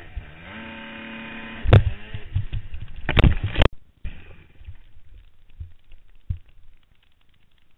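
Dirt bike engine revving, then a loud crash with heavy impacts as bike and rider go down, the engine noise cutting off suddenly about three and a half seconds in. Afterwards only faint rustling and a couple of dull thumps.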